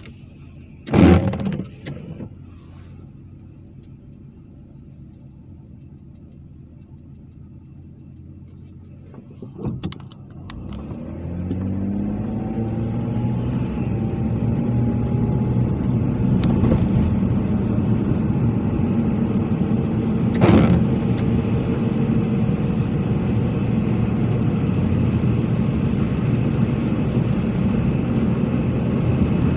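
Car: a sharp thump about a second in, like a door shutting, then about ten seconds in an engine starts, its pitch rising as it picks up, and settles into a steady run. Another single knock comes near twenty seconds.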